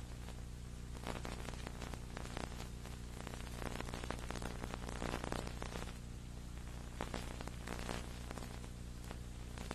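Steady electrical hum with a crackling static hiss over it, and no program sound: a dropout in the tape's audio.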